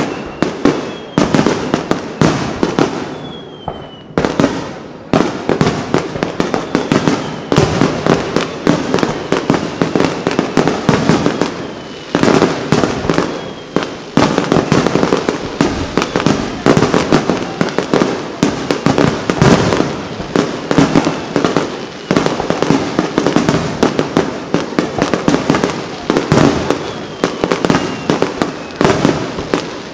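Dense barrage of aerial firework shells bursting in quick succession, bangs and crackle overlapping almost without a break. A few falling whistles sound near the start.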